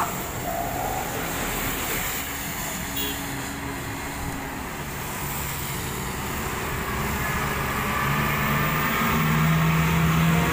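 Road traffic passing on a wet road, with steady tyre hiss. Near the end a heavily loaded UD Quester truck's diesel engine hums louder as it drives by close.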